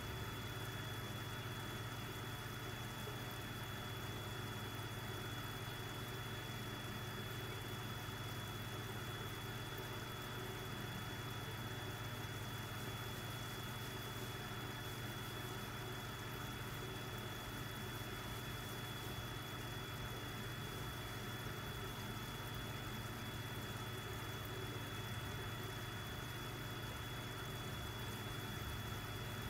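Aquarium air pump running with a steady low hum and a thin high whine over it.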